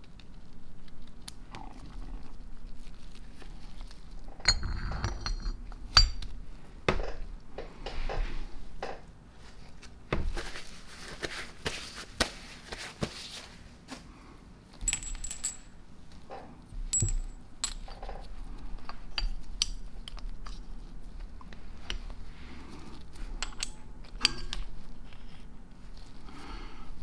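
Steel hammers, pins and hammer cage of an Ingersoll-Rand 2850MAX-6 air impact wrench being handled and fitted together: scattered light metallic clinks and knocks at irregular intervals as the greased hammers sit in the cage and the pins are pushed through.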